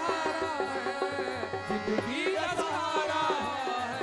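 Devotional kirtan music: harmonium playing held chords and melody over steady dholak drumming, with a gliding vocal phrase near the middle.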